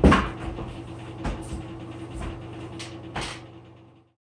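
Noisy Broan-Nutone bathroom exhaust fan running with a steady hum whose motor needs repair, under a few wooden knocks as a wooden stepladder is set down and climbed. A loud knock comes right at the start; the sound fades out and cuts off near the end.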